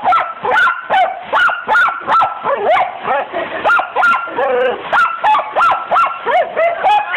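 Dachshund barking excitedly in rapid, repeated high-pitched barks, about three a second, at water hitting the window.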